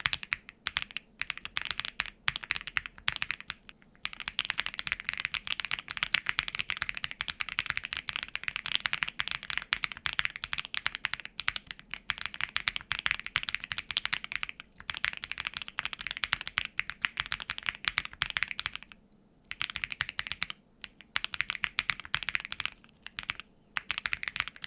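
GoMaster Fossil custom mechanical keyboard being typed on quickly, a dense run of key clacks. There are a few short pauses, the longest about 19 seconds in.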